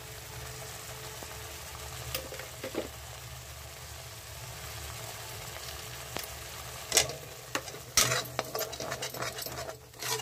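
Tomato and spice masala sizzling as it fries down in a pan. From about seven seconds in, a perforated metal spatula scrapes and knocks against the pan as the paste is stirred, the first two strokes the loudest.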